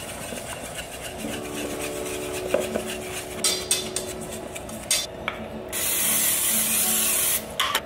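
Wire whisk scraping and rubbing against a stainless steel bowl as a dry, crumbly flour crust mix is stirred, with a few sharp knocks against the bowl. About six seconds in, a steady hiss of aerosol cooking spray lasts about a second and a half and is the loudest sound.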